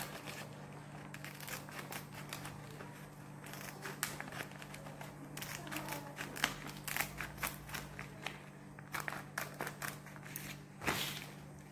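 Scissors cutting through a woven plastic rice bag: a run of short, crisp snips, with the bag crinkling as it is handled, the loudest snip near the end. A steady low hum runs underneath.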